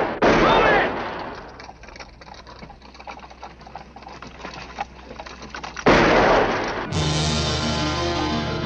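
Film soundtrack gunfire: a loud shot at the start carrying a whine that rises and falls in pitch, scattered sharp cracks of gunfire, and another loud shot about six seconds in. Film score music comes in about seven seconds in.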